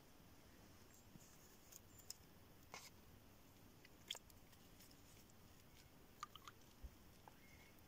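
Near silence: a faint outdoor background broken by a few short, soft clicks and ticks, with a small cluster of them near the end.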